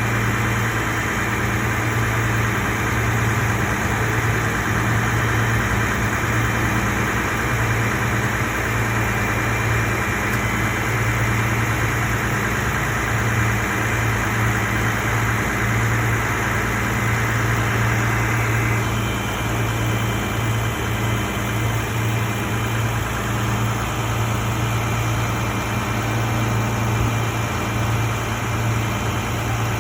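Car engine idling, a steady low hum with a steady hiss over it; the hiss eases a little about two-thirds of the way through.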